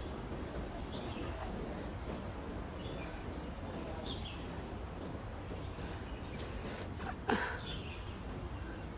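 Insects buzzing steadily in a high, even whine, with short bird chirps every second or two. A single sharp click sounds about seven seconds in.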